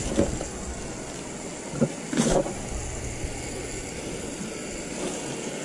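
Hose-end coil gun sprayer on a garden hose jetting a foaming cleaner and water mix into an air conditioner's dirty condenser coil: a steady spray hiss, with a brief louder rush about two seconds in.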